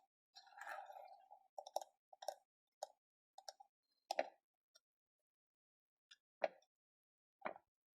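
Light, irregular taps and clicks on a small hard object, about ten in all, clustered in the first half and then two single taps near the end.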